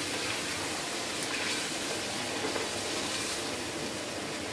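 Chicken karahi curry with stock-cube water in it simmering in a wide aluminium pan on a gas stove: a steady sizzling and bubbling hiss as the liquid cooks down.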